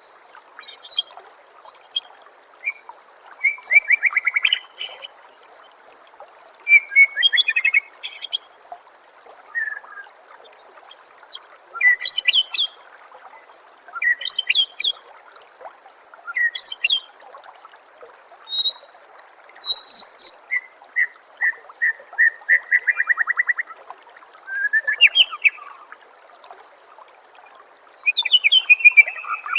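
White-rumped shama (murai batu) singing: short, varied whistled and chattering phrases every two or three seconds, with a fast trill about two-thirds of the way through. Under it runs a steady trickle of water.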